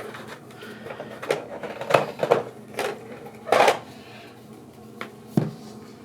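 Handling noise from unboxing: irregular knocks and clicks as a packaging box and the accessories inside it are moved around, with one longer handling sound a little past halfway.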